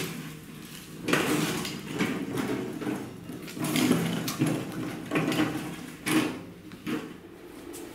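Castor wheels of a welded steel-tube smoker stand rolling over brick tiles, the frame and half-barrel trough rattling and clunking with several louder bumps as it is pushed and turned.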